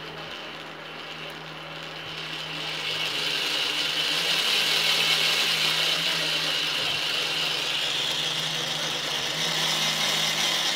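Small DC electric motor driving a homemade three-cylinder model engine's crankshaft and gears: a steady mechanical whir with a constant hum, growing louder a few seconds in.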